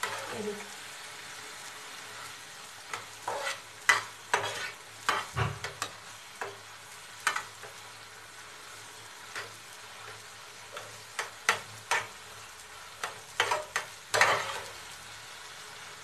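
Metal spatula scraping and knocking against a steel kadai as thick suji halwa is stirred, in irregular bursts with a quieter stretch in the middle, over a steady low sizzle from the pan.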